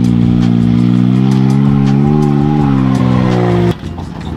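Can-Am off-road vehicle engine running loud at steady revs, its pitch wavering slightly past the middle, then cutting off abruptly near the end; a quieter, lower engine rumble follows.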